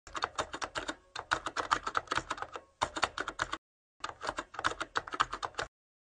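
Typing sound effect: rapid computer-keyboard key clicks, several a second, in three runs with a short pause about a second in and a longer one around three and a half seconds in, then cutting off abruptly.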